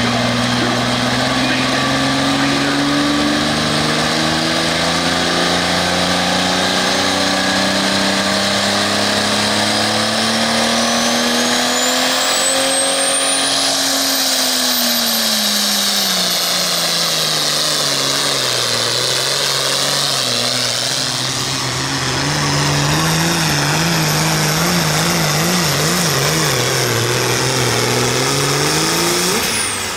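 International 886 super stock pulling tractor's turbocharged diesel engine at full throttle through a pull. The engine note climbs for the first dozen seconds, then drags down as the sled's load builds, wavers near the end, and rises again at the finish. A high whistle climbs over the first half.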